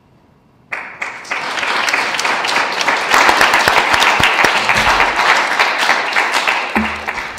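Audience applauding: clapping breaks out suddenly under a second in, holds loud and steady, and dies away near the end.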